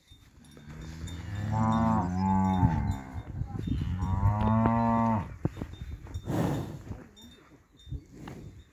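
Brown Swiss (Montafon) cow mooing: two long moos, the second starting about four seconds in, followed by a short burst of noise.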